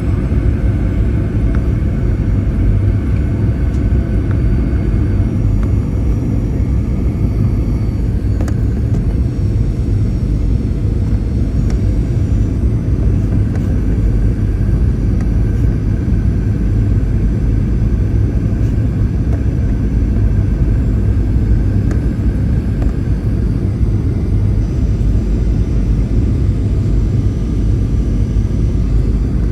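Steady cabin noise of a Boeing 737-800 in flight: an even, loud rumble of airflow and CFM56 engines, with a faint high whine above it.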